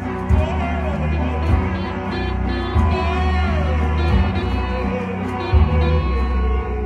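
Live rock band music with a heavy, sustained bass and a kick-drum hit about every second and a quarter, with wavering melody lines over it.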